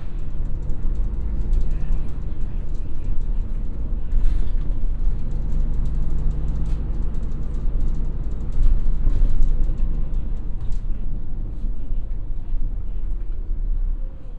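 City bus running along the road, heard from inside the passenger cabin: a steady low engine and road drone with small rattles and creaks from the bus body, swelling a little about two-thirds of the way through.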